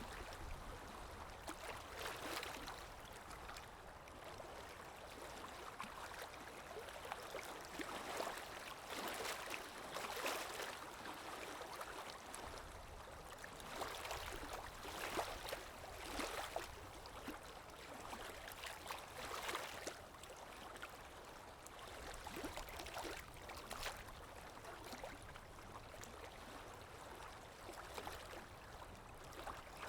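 Calm sea waves lapping gently: a steady wash with small splashes coming irregularly every second or two.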